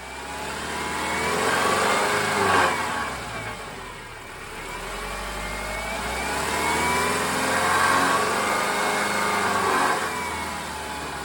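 A 2010 Subaru Forester's flat-four engine revved twice, climbing and falling back each time, with the second rev held longer. The revs go through the range around 2700 RPM where a loose exhaust heat shield makes a grinding rattle.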